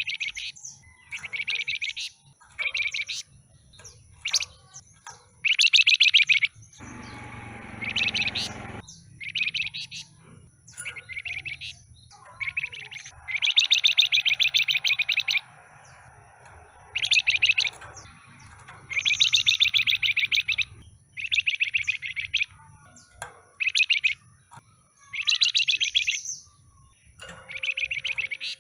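A flamboyan songbird singing in repeated bursts of fast, chattering trilled phrases, about a dozen of them, each lasting up to two seconds with short pauses between. A brief rustling noise comes about seven seconds in.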